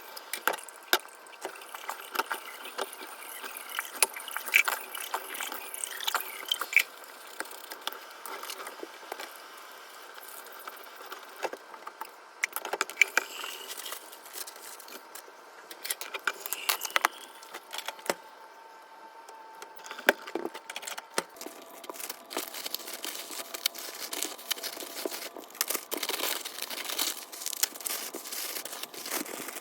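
Light clinking, clattering and tapping of small hard household items being handled and set down during cleaning, with irregular sharp clicks throughout.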